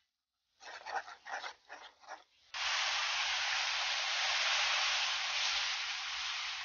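Water poured into a hot iron kadai of onion-and-spice masala frying in mustard oil: a sudden loud, steady sizzling hiss that starts about two and a half seconds in and holds for about four seconds before fading. Before it come a few short scraping, sizzling strokes as the masala is stirred with a spatula.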